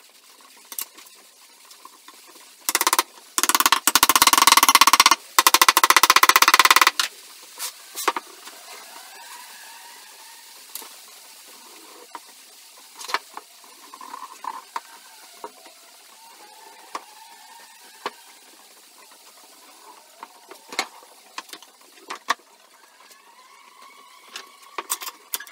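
Glue-up of a wooden dovetail box: a loud, rough noise lasting about four seconds, broken by two short gaps, followed by scattered light knocks and taps of wooden parts being handled and fitted.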